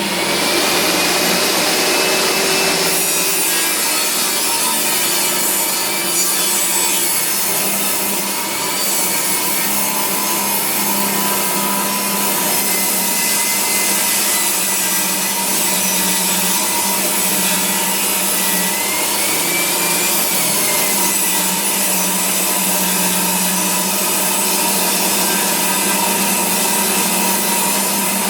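Makita 2704N table saw running steadily and ripping a board of recycled Australian ash lengthwise, with a steady motor hum under the whine of the blade in the wood.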